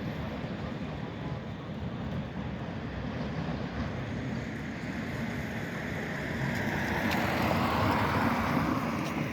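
Tram running on its rails, a steady rolling rumble that grows louder near the end with added wheel hiss.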